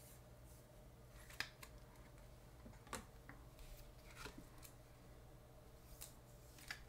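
Faint handling of trading cards and a plastic card holder: soft rustles and a few light clicks, the sharpest at about one and a half and three seconds in, over a low steady room hum.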